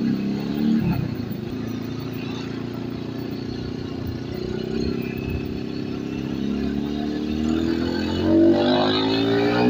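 Motorstar Z250R cafe racer's engine and exhaust on the move. The engine note drops about a second in, holds steady, then rises over the last few seconds as the bike accelerates.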